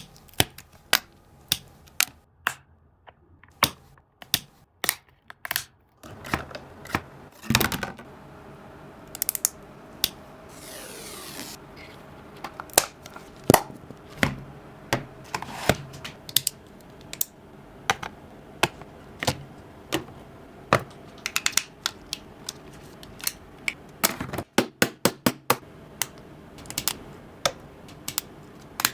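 Small craft pieces being handled, tapped and set down: irregular sharp clicks and taps, with a quick run of taps near the end. A short scraping sound comes about ten seconds in.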